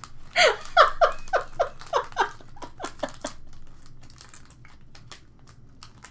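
A woman laughing: a quick run of about ten short "ha" syllables over roughly three seconds, each falling in pitch. After it come faint clicks and handling noise as a ballpoint pen is picked up and worked in the hands.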